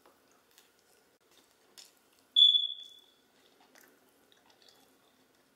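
A single high-pitched beep about two and a half seconds in, loud at its start and dying away within about half a second. Around it, only faint scattered clicks.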